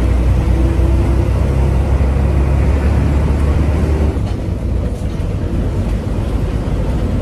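Inside a moving bus: steady engine and road rumble with rushing air noise. The deepest part of the rumble drops away about four seconds in.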